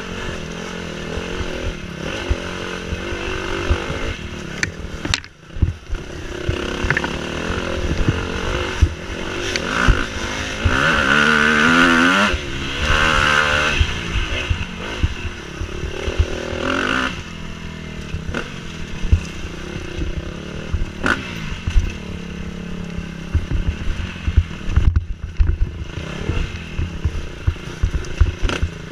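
Off-road dirt bike engine under way, its revs rising and falling as the rider works the throttle and gears, dropping briefly about five seconds in and running loudest and highest around the middle. Scattered knocks and rattles from the bike over rough ground.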